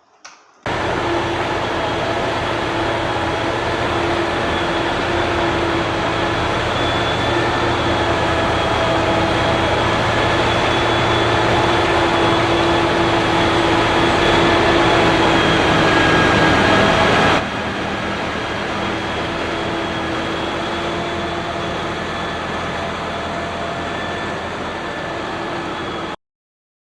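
Steady vehicle running noise with a constant hum, laid in as an edited sound track. It cuts in abruptly just under a second in, drops slightly in level about two-thirds through, and cuts off abruptly near the end.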